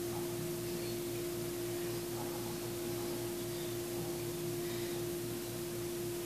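A steady hum holding one pitch over an even hiss, with a faint pulsing throb lower down.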